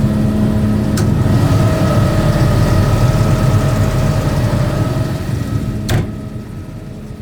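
Diesel engine of a Volvo EC300EL crawler excavator running steadily, a low rumble carrying a steady whine. A sharp knock comes about six seconds in, and the sound gets quieter after it.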